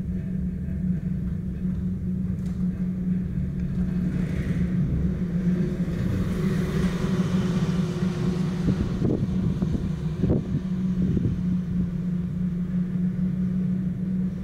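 Steady low hum and rumble of an aerial cable car cabin riding up its haul rope. A rushing swell builds in the middle, followed by a few short knocks as the cabin passes a support tower.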